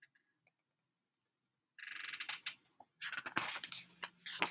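Near silence for almost two seconds, then soft rustling, scraping and light knocks as a hardcover picture book is handled and its page turned.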